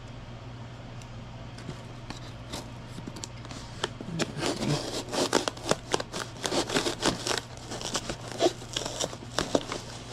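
A dull knife scraping and cutting at cardboard and plastic packaging, with irregular scratches, crinkles and small tearing noises starting about four seconds in.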